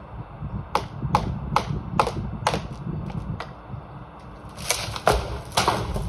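Sharp cracks and knocks of breaking wood, about ten in a row at uneven spacing and strongest near the end, as a sawn-off tree crown breaks away and falls through the branches.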